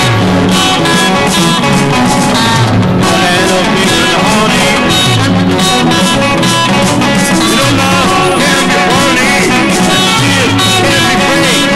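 Rock and roll song played by a full band: electric guitars, bass guitar and drums, steady and loud.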